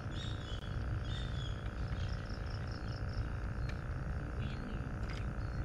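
Outdoor ambience: insects chirping over a steady low rumble, with a quick run of about seven high chirps around two seconds in and a few faint clicks later.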